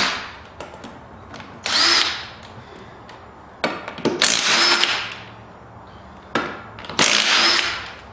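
Impact driver with a 3/4-inch socket running in short bursts of under a second, about four times, each starting with a brief rising whine, as it spins off the rear wheel's lug nuts.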